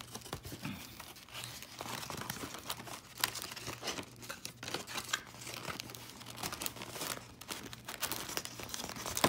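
Plastic wrapping crinkling and tearing in irregular bursts of small crackles and clicks as a box of baseball card packs is handled and opened.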